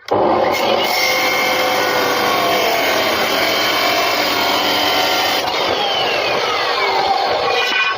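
A power tool's abrasive cutting disc running and cutting through iron, a steady loud grinding. In the last couple of seconds a whine falls in pitch.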